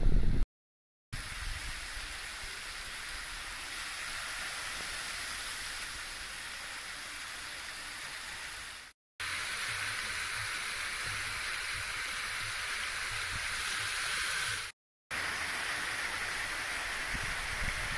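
Splash-pad water jets and spray pipes splashing steadily into a shallow pool, a constant hissing rush of falling water. It cuts out briefly three times: near the start, about halfway through, and a little past three-quarters.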